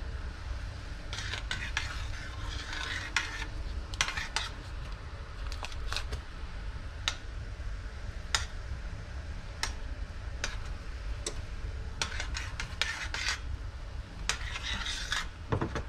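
Metal spoon stirring a cream and butter sauce in a stainless steel saucepan, clinking and scraping against the pan. Single clinks come every second or so, with several short runs of quick scraping strokes.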